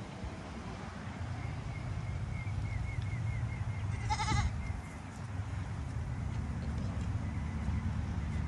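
A goat bleats once about four seconds in, a short wavering cry lasting about half a second.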